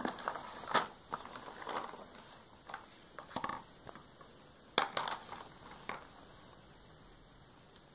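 Scattered light plastic clicks and knocks from a plastic toy tractor and dump trailer being handled and loaded with plastic balls. The sounds stop after about six seconds.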